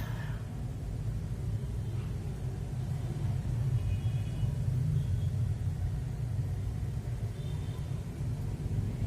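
Steady low rumble, with faint brief high squeaks about four seconds in and again near the end.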